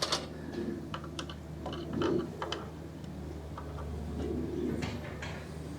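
Scattered light metallic clicks and ticks of hand tools working on a saw as its newly changed blade and fittings are tightened, over a steady low hum.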